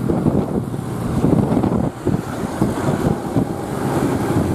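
Bus engine and 'ngorok' (snoring) exhaust giving a loud, rough, pulsing rumble, with wind buffeting the microphone.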